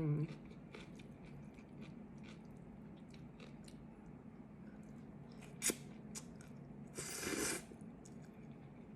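Close-miked mouth sounds of chewing hiyashi chuka cold noodles and toppings: many small wet mouth clicks, one sharp click about five and a half seconds in, and a short hiss-like burst about seven seconds in.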